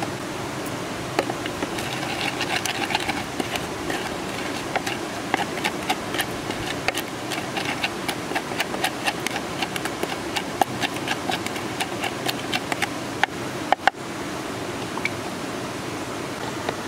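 Wooden pestle pounding chili paste in a wooden mortar: a long run of quick knocks that stops shortly before the end. Steady rushing stream water lies underneath.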